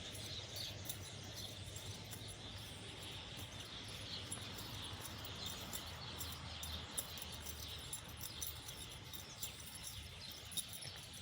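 Garden ambience: a steady chirring of insects with scattered short bird chirps over a faint low rumble.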